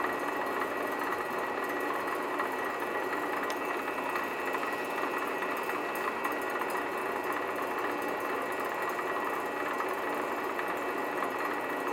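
Grizzly G0768 benchtop lathe running at a steady speed, its motor and drive giving an even machine whine with a steady high tone.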